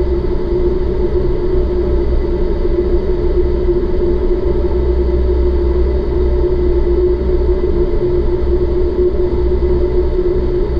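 Loud, steady rush of air through an indoor skydiving vertical wind tunnel's flight chamber, with a deep rumble and a constant hum from the tunnel's fans.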